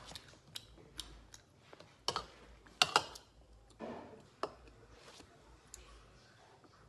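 Metal spoon clinking and scraping against a dish while separating a balut's white from its yolk: a string of irregular sharp clicks, the loudest two close together about three seconds in.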